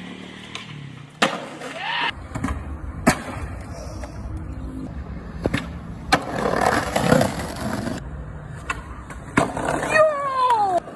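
Skateboard wheels rolling on pavement with a steady rumble, broken by several sharp clacks of the board popping and landing. Near the end comes a falling voice-like cry.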